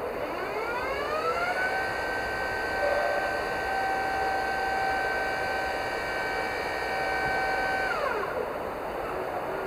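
Electric hydraulic pump motor of a Manitou 105 VJR2 vertical mast lift whining as it raises the platform. The whine rises in pitch over the first two seconds, holds steady, then falls away about eight seconds in as the pump stops.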